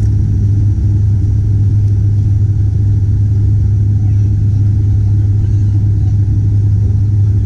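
Turboprop airliner engines and propellers heard from inside the cabin: a steady, loud drone with a strong low hum.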